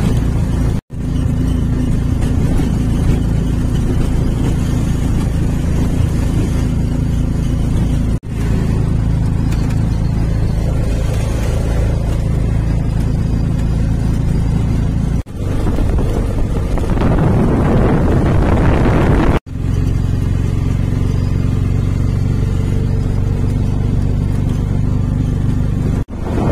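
Engine and road noise heard from inside a moving vehicle, a steady low hum that drops out briefly several times. A little past the middle, a louder rushing noise runs for a few seconds.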